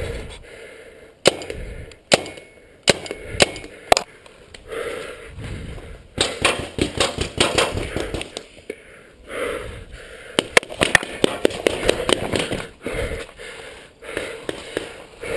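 Paintball markers firing: sharp single pops and quick bursts of several shots, repeating at irregular intervals.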